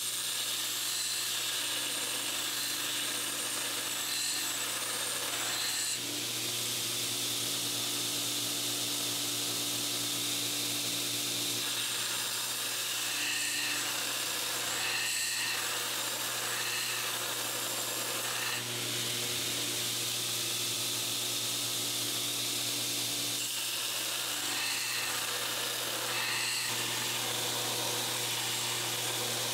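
Belt grinder running with a 5160 steel knife blade pressed against the abrasive belt, grinding the pre-heat-treat bevels: a steady hiss of steel on the belt over the machine's hum.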